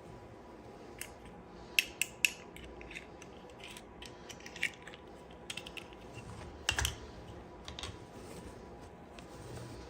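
Irregular sharp clicks and taps of small plastic toy pieces and packaging being handled during an unboxing. A quick cluster of three comes about two seconds in, and the loudest is a short rattle near seven seconds.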